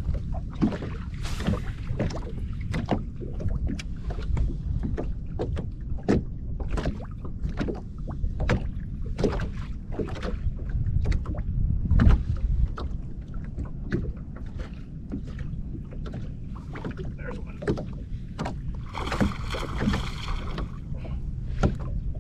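Wind buffeting the microphone and small waves slapping against a bass boat's hull, with many short, sharp knocks and a brief brighter burst near the end.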